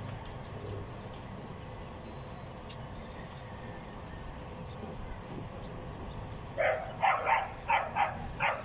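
A dog barking in a quick run of sharp barks, about three a second, starting near the end. Before that only faint high chirping over a steady background hum.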